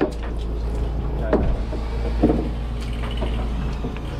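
Boat engine running with a steady low drone, and two brief louder sounds about one and two seconds in.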